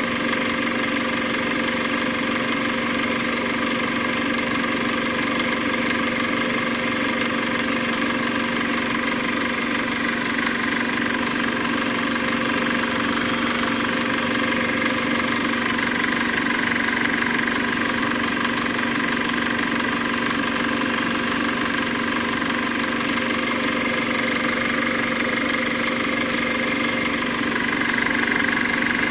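Steady machine running noise: a constant hum with a whir and hiss above it, unchanging throughout.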